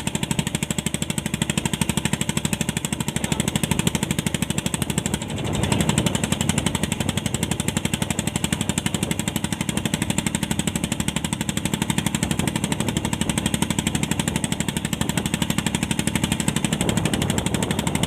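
Boat engine running steadily with a rapid, even chugging pulse, swelling briefly about five seconds in.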